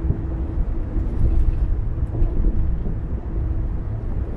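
A car being driven on the road: a steady low rumble of tyres and engine, with a faint steady hum above it.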